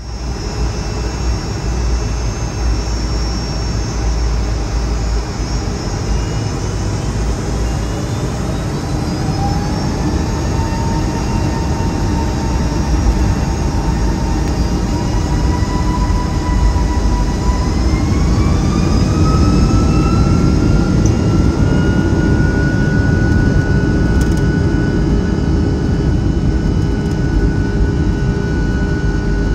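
Rolls-Royce RB211-535E4B turbofans of a Boeing 757-200 heard from inside the cabin, spooling up for takeoff: a steady deep rumble with whining tones that rise from about eight seconds in and then hold steady at a higher pitch.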